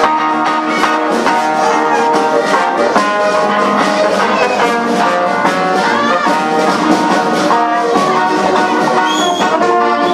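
Jazz-style brass band music with trumpet and trombone, playing steadily.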